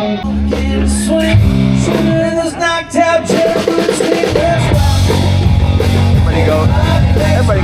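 Rock music with guitar and a drum kit.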